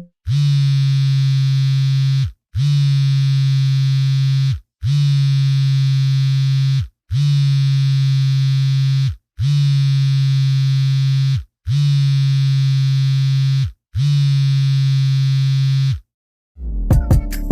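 Mobile phone vibration alert: a low, steady buzz pulsing seven times, each about two seconds long with short breaks between. Near the end a different sound with sharp clicks begins.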